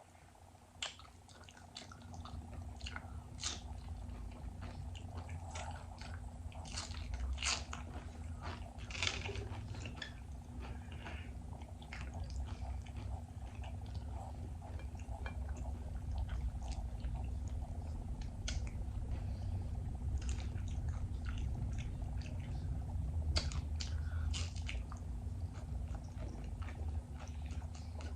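Close-up chewing of cheesy beef nachos made with Nacho Cheese Doritos: irregular crisp crunches of the chips between steady wet chewing, with a faint steady hum underneath.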